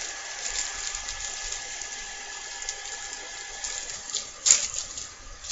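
Plastic snack wrapper crinkling as it is handled and opened, with one sharp snap about four and a half seconds in.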